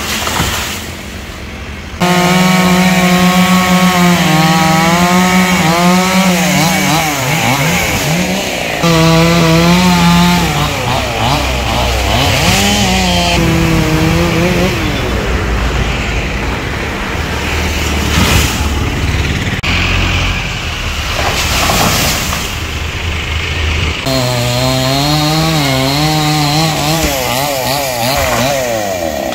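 Chainsaw running while cutting trees, its engine pitch holding steady for a few seconds at a time and then repeatedly rising and falling as the throttle is worked.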